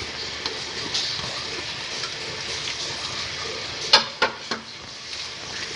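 Chopped onion and green chillies being scraped by hand off a ceramic plate into a bowl of gram flour: soft scraping and rustling over a steady hiss, with a few sharp knocks of the plate about four seconds in.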